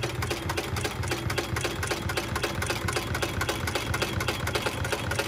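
Seiko SLH-2B 7-class heavy-duty walking-foot sewing machine running at a steady pace, stitching through five layers of heavy webbing, with an even, rapid rhythmic mechanical clatter.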